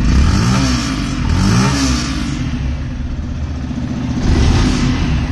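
Yamaha FZ-S V3's single-cylinder engine running through its exhaust, revved in short blips about half a second in, again about a second and a half in, and once more near the end.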